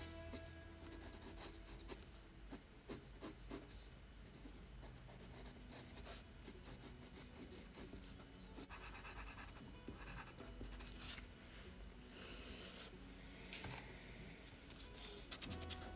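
Colored pencil scratching faintly on drawing paper in many short, uneven strokes as it shades.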